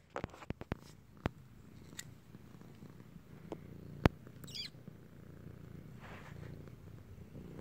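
A tabby cat purring steadily right at the microphone, with sharp clicks and knocks as it rubs against the camera; the loudest knock comes about four seconds in.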